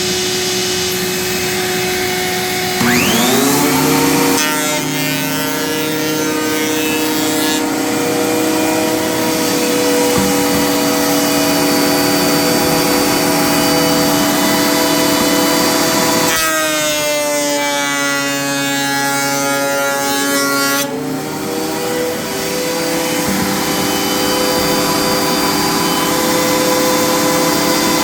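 13-inch thickness planer running with a steady motor whine; about three seconds in its pitch climbs as it comes up to speed. From about 16 s to 21 s the pitch sags and the sound turns rougher as a board passes through the cutterhead, then it settles back to the steady whine.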